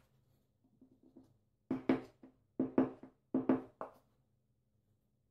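A wooden block knocked against freshly set glass mosaic tile to bed it into the thin-set: about seven sharp knocks in quick pairs, starting near the middle.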